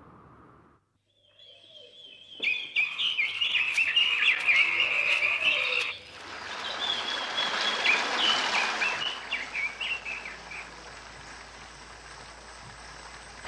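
Forest ambience: a dense chorus of high chirping animal calls begins about two seconds in. After an abrupt change about six seconds in, scattered calls sound over a steady hiss and thin out toward the end.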